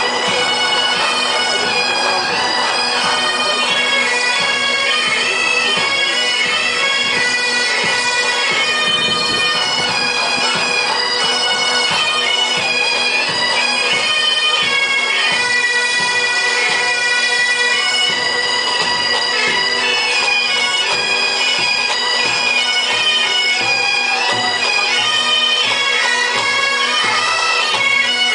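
Bagpipe band playing a tune, the melody moving over the pipes' steady drone.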